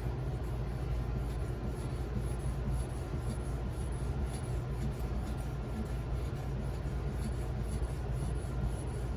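1100 grit Edge Pro sharpening stone stroking along the 154CM steel edge of a knife in quick repeated passes, about two strokes a second. A steady low hum runs underneath.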